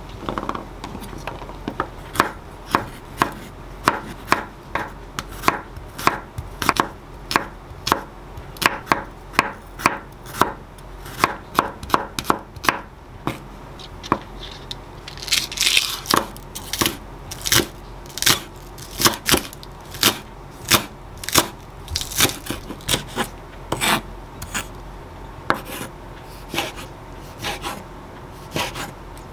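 Chef's knife slicing garlic and green onions on a wooden cutting board: a steady run of sharp knife-on-board strikes, about two a second, with a quicker, crisper burst of cuts about halfway through.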